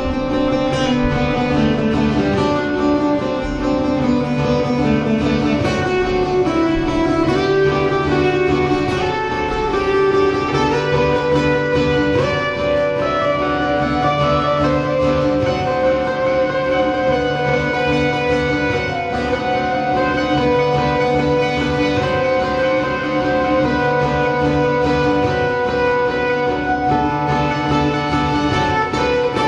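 Acoustic guitar played solo in an instrumental passage of a blues-folk song, with a steady bass line under the melody notes.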